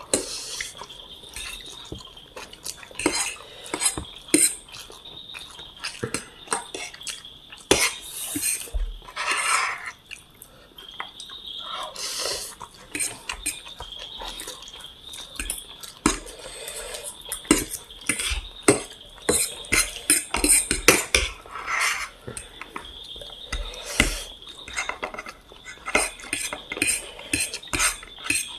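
Metal cutlery clinking and scraping irregularly against a plate while chow mein noodles are eaten. A faint steady high tone runs underneath.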